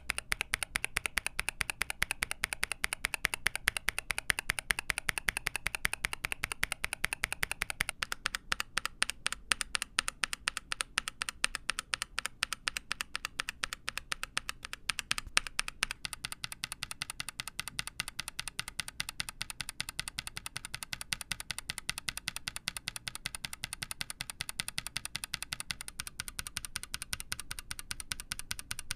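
Mechanical keyboard being typed on quickly and continuously, a dense run of key clacks. The tone of the keystrokes changes about 8, 16 and 26 seconds in.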